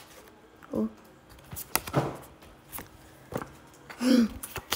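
Pokémon trading cards being handled and slid against one another: scattered soft flicks and rustles, with a brief voice sound about a second in and another near the end.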